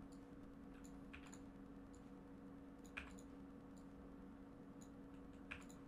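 Faint computer mouse clicks, a few scattered ones with the clearest about three seconds in, over a low steady hum.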